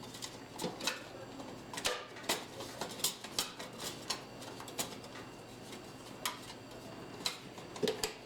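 Irregular small clicks and taps of computer parts and a cable connector being handled and fitted into place.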